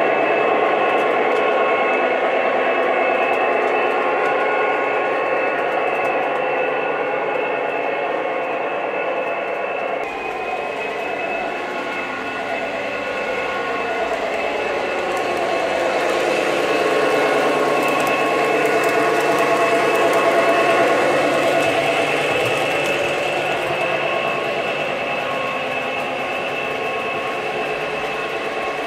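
Two Lionel O-gauge Union Pacific DD35A model diesel locomotives running together on three-rail track: the onboard sound system's diesel engine drone mixed with motor whine and wheels on the rails. The sound changes abruptly about ten seconds in, then swells and eases off.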